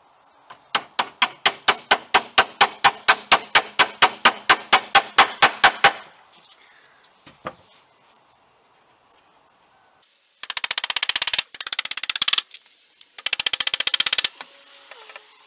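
Hammer tapping steel T-nuts into the ends of wooden table legs: a steady run of sharp metal strikes, about five a second, for some six seconds. After a pause and a single knock, several short bursts of much faster strikes follow.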